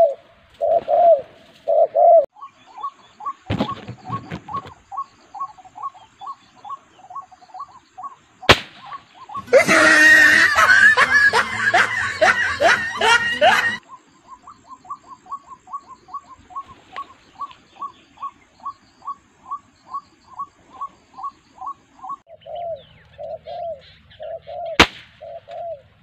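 Doves cooing in short pulsed phrases at the start and again near the end. Between them a bird call of short notes repeats steadily, two to three a second. About ten seconds in comes a loud rough rustling burst lasting about four seconds, and there are single sharp cracks at about a quarter of the way in and twice more later.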